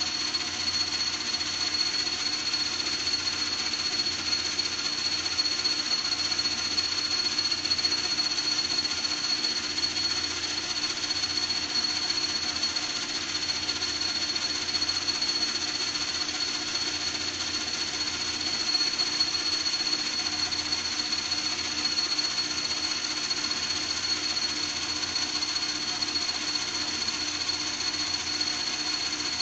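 A small motor running steadily, with a high, constant whine and a fast rattle underneath, unchanged throughout.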